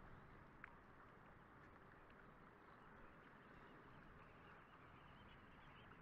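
Near silence: a faint, steady outdoor hiss with soft high twittering from a flock of dunlins, and one faint tick a little over half a second in.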